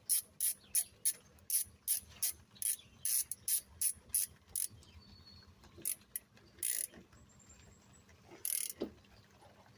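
Hand ratchet clicking as it tightens a brake caliper's bolts: a steady run of sharp clicks, about three a second, for the first four and a half seconds, then a few scattered clicks and two longer rasps.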